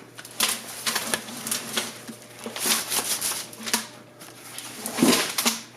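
Irregular clattering, knocking and rustling of objects being handled and moved about, with a louder scrape about five seconds in.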